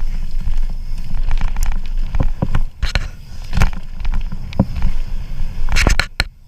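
Mountain bike rattling and clattering over braking bumps and rocks on a downhill trail, with repeated sharp knocks over a steady low rumble of wind and tyres; a quick burst of knocks comes near the end.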